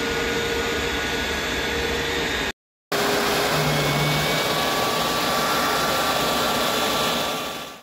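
Westinghouse J34 turbojet engine running steadily, heard from just behind its exhaust: a loud, even rush of exhaust air with a few steady whining tones over it. The sound cuts out briefly about two and a half seconds in.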